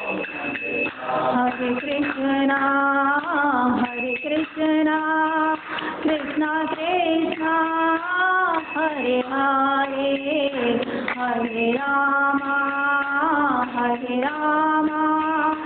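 A woman singing a slow devotional song, holding long notes that slide smoothly from one pitch to the next.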